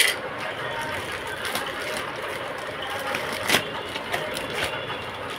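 A plastic courier mailer being cut open with scissors and handled: a few sharp snips and plastic crinkles, the loudest about three and a half seconds in, over a steady background noise.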